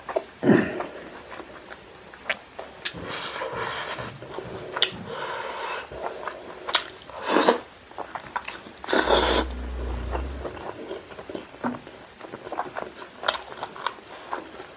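Close-miked mouth sounds of eating spicy fried chicken: irregular wet chewing, smacking and biting clicks. About nine seconds in comes a louder rubbing burst with a low thud.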